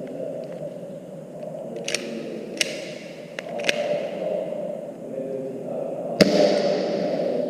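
Airsoft pistol firing at a target: a few separate sharp cracks about two, two and a half and three and a half seconds in, then a louder one just after six seconds that rings briefly, over a steady low rumble.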